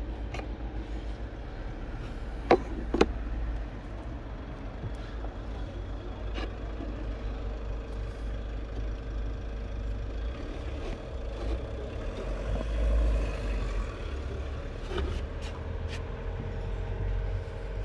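Plastic clicks and knocks from the cabin (pollen) filter and its housing being handled behind the glovebox, with two sharp clicks about two and a half seconds in. A steady low hum runs underneath.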